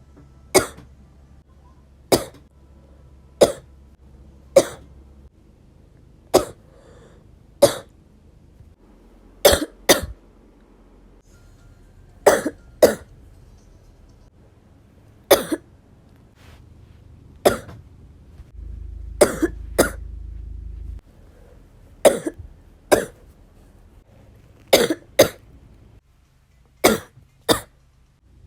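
A person coughing repeatedly: short, sharp coughs, single or in quick pairs, every second or two, about twenty in all: a persistent cough.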